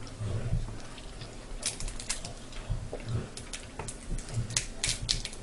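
Close-up eating sounds: snow crab shells cracking and snapping in a series of sharp, irregular clicks, with soft chewing thuds.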